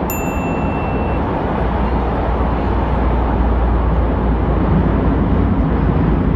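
Metro train running, heard from inside the carriage: a steady, loud low rumble. A short high beep sounds right at the start.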